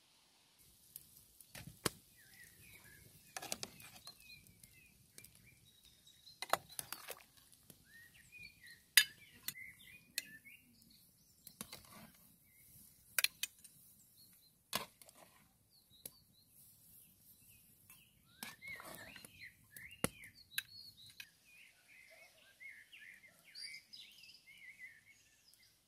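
Metal cooking utensils clinking and knocking against a pot and plates in scattered sharp strokes, with a denser patch of clatter about two-thirds of the way through. Small birds chirp throughout.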